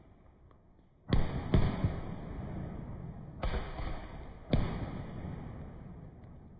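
Aerial fireworks exploding: four loud booms, two close together about a second in and two more a second apart past the middle, each trailing off in a long rumbling, crackling echo.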